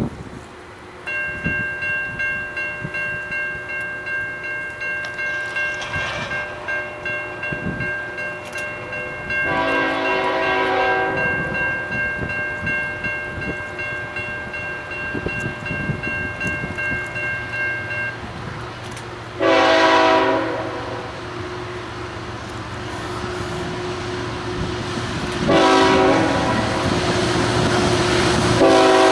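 Grade-crossing warning bell ringing in a steady pulsing rhythm, falling silent a little past halfway. Over it, the horn of an approaching CSX GE ET44AH locomotive sounds twice briefly, then starts a long blast near the end, with the locomotive's low engine drone growing louder.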